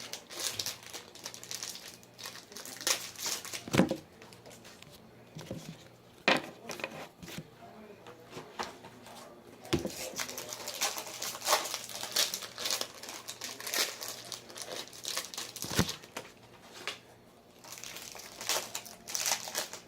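Trading card pack wrappers being torn open and crinkled, in irregular bursts of crinkling with sharp snaps.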